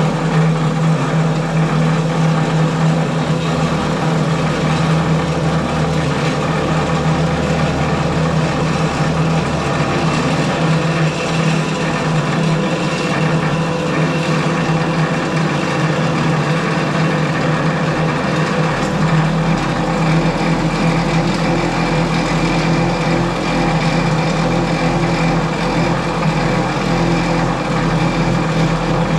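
Scotchman cold saw running with a steady low hum as its blade cuts through 2-inch square metal tube.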